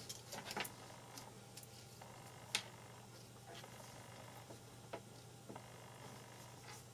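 Faint clicks and light handling as plastic spring-hook test clips are picked up and clipped onto a small receiver board, over a low steady hum.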